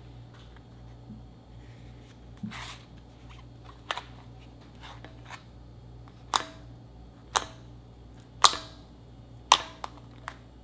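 Fingers poking into slime in a plastic tub: sharp popping clicks, a few faint ones in the first half and then four loud ones about a second apart, over a steady low hum.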